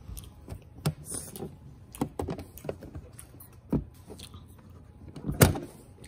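Plastic combination dial on a Dr. Stem Toys toy ATM bank being turned by hand, giving a series of small irregular clicks, with one louder click near the end.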